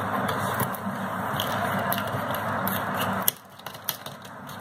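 Hands tearing open a cardboard courier package sealed with plastic packing tape, with scattered crackles and scrapes. A steady hiss underneath cuts off about three seconds in.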